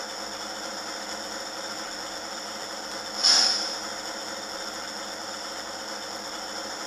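Sound decoder in an H0 model of a BR 118 (V 180) diesel locomotive playing the diesel engine idling, heard through the model's small speaker. A short, loud hiss about three seconds in is the loudest moment.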